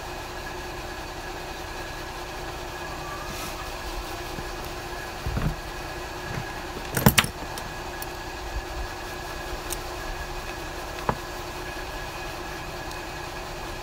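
Steady mechanical hum with a few sharp clicks and knocks from a small plastic fuel pump and hand tools being handled. The loudest is a quick double click about seven seconds in.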